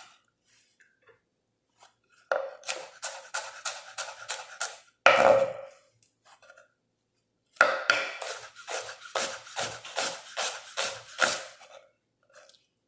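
A chef's knife slicing through a white onion onto a wooden cutting board in quick, even strokes of about four a second, in two runs. Between the runs comes a single louder scrape as the slices are moved off the board.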